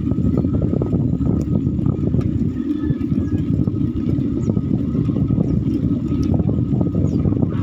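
Steady rumble of wind buffeting the microphone, mixed with road noise from a moving two-wheeled vehicle.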